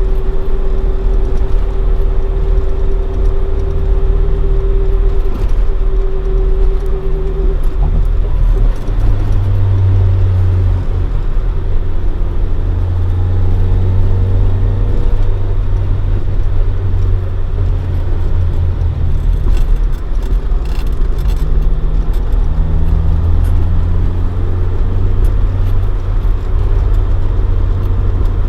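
Toyota AE86 Sprinter Trueno's swapped AE111 20-valve 4A-GE engine, fed by individual throttle bodies, running through a Fujitsubo Legalis R exhaust while cruising. About eight seconds in the note changes, the higher tone dropping away and a deeper, stronger drone taking over, then wavering as the revs rise and fall with the road.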